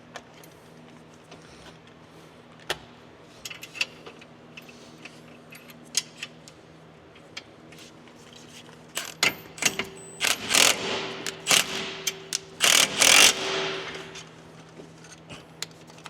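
Metal tools clinking against suspension parts, then a power tool driving the rear suspension bolts home in several short bursts.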